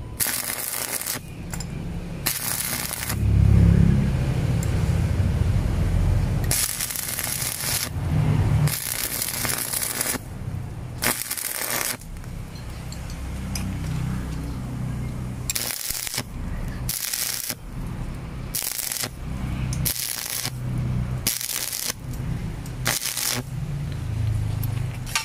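Stick (arc) welding a steel angle bar onto a scaffolding clamp: the electrode's arc crackling and sizzling, stopping and restriking several times. A louder low rumble about three to six seconds in.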